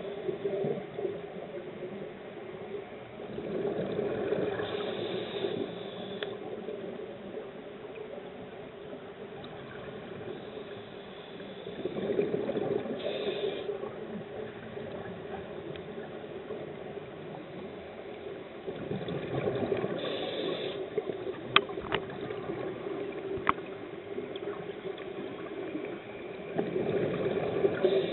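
Scuba diver breathing through a regulator, heard underwater: a rushing, bubbling surge of exhaled bubbles comes back about every seven or eight seconds over a steady underwater hiss. Two sharp clicks sound about three-quarters of the way through.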